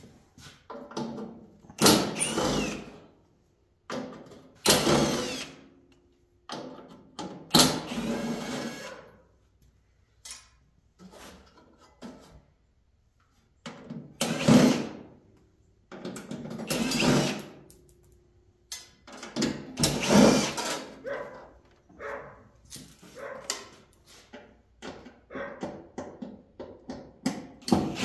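Cordless drill-driver backing screws out of an air conditioner's sheet-metal casing, in about seven short runs of a second or two each, with clicks and rattles of parts being handled in between.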